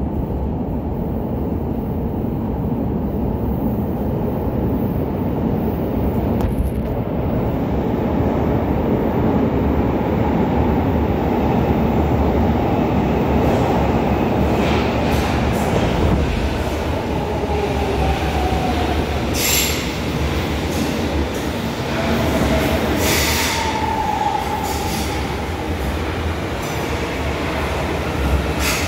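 São Paulo Metro train running through a curved tunnel, heard from aboard: a steady rumble of wheels on rail with wheel squeal. In the second half, falling whines come in as the train slows toward the station, along with a few short hisses.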